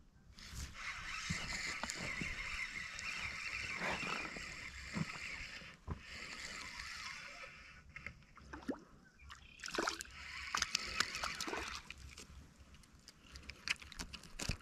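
Spinning reel cranked in three runs of steady whirring as a hooked small goldeye is reeled in. A few short splashes and knocks come later on as the fish is brought to the bank.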